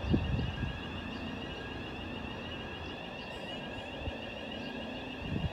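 N class diesel-electric locomotive approaching in the distance: a low steady engine hum under a steady, high warbling electronic tone. A brief low thump comes at the start and another near the end.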